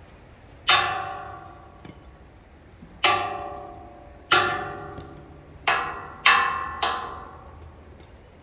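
A metal tube struck six times, each knock ringing with a clear metallic tone that fades over about a second; the last two come close together.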